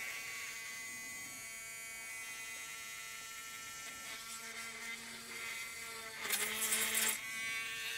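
Small handheld rotary tool spinning a 1 mm drill bit with a steady high whine while drilling into hard plastic. There is a louder, noisier stretch about six seconds in, as the bit cuts into the plastic.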